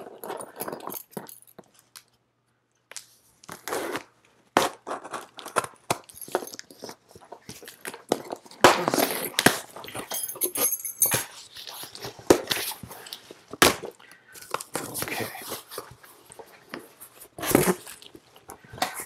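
A cardboard shipping box being opened with a key: packing tape cut and ripped, and cardboard flaps scraping and rustling in irregular bursts, with a couple of sharp knocks.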